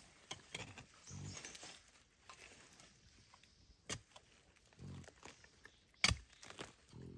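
A small hand hoe chopping into soil and dry bamboo leaves while digging for bamboo shoots, with two sharp strikes about four and six seconds in. A piglet grunts in short low bursts as it roots beside the blade, over a rustle of dry leaves.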